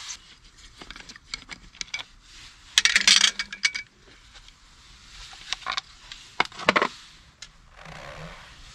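Suzuki K90 air-cleaner cover being worked loose and pulled off by hand, giving sharp metallic clicks and clinks, with a loud clattering cluster about three seconds in. Near the end there is a soft rubbing as the foam filter element is handled.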